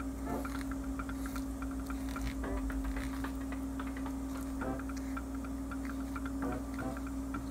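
Filleting knife ticking and scraping against the bones of a marbled flounder as the fillet is cut free along the backbone: a run of small, irregular clicks. A steady hum runs underneath.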